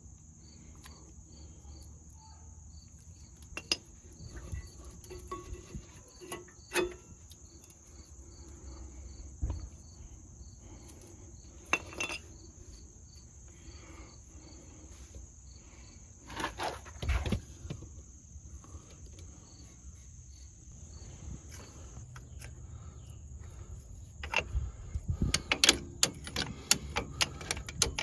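Crickets chirping in a steady, regular pulse, with scattered metallic clinks and clanks from tools and brake parts being handled during a brake pad and rotor job. The clanking gets busier near the end.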